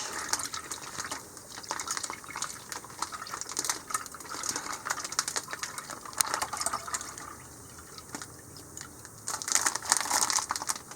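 Brine being poured out of a plastic brining bag into a dish: liquid splashing and trickling in uneven bursts, with crinkling and clicking from the handled plastic bag.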